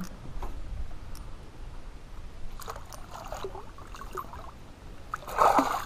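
Water splashing as a hooked bass is brought alongside the boat and netted, with a louder splash about five and a half seconds in as the landing net comes up out of the water.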